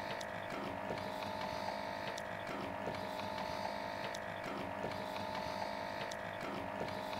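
A small motor or pump runs with a steady hum made of several held tones, with faint ticks about every two-thirds of a second.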